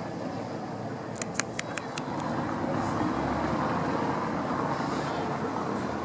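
Steady city street traffic noise, with a quick run of sharp clicks a little over a second in.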